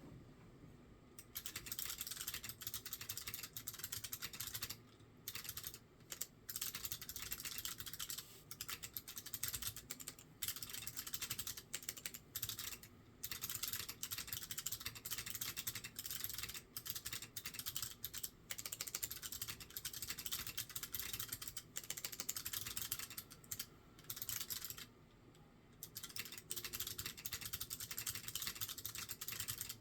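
Mechanical keyboard with SMK 2nd-gen clicky switches in a 1.5 mm aluminium plate with no foam, and doubleshot ABS Cherry-profile keycaps, being typed on in fast runs of clicky keystrokes. The typing starts about a second in and stops briefly a few times, with a longer pause near the end. The overall sound is somewhat choked.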